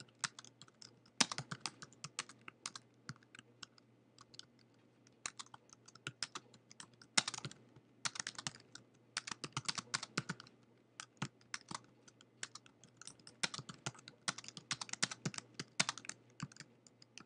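Typing on a computer keyboard: irregular runs of key clicks, broken by short pauses.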